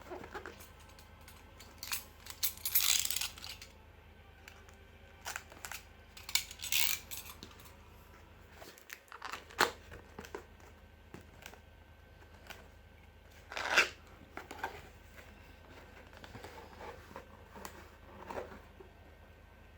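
Packaging being handled and opened: irregular rustling and tearing of box material and wrapping, with scattered clicks and knocks. The loudest bursts come about 3 seconds in, about 7 seconds in and near 14 seconds.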